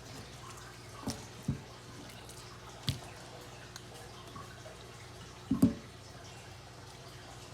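A few short wet slaps and clicks of a raw ribeye steak being handled and flipped over, the loudest a little over five seconds in, over a low steady hum.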